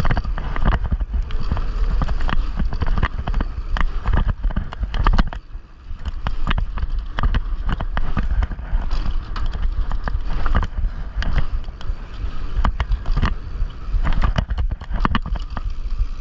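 Mountain bike rolling fast down a dirt trail, its handlebar-mounted GoPro rattling and knocking in a loose mount over a deep rumble of tyres and wind buffeting. Dense clatter throughout, briefly quieter about five to six seconds in.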